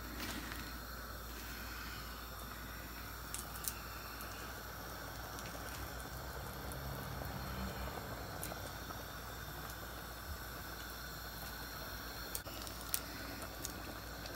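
Pot of seasoned rice simmering on a gas stove: a soft, steady bubbling hiss, with a few faint clicks scattered through it.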